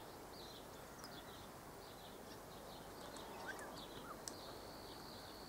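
Faint wild birdsong: many short, high chirps repeating, with a couple of lower chirps near the middle and a steady high note starting a little over four seconds in.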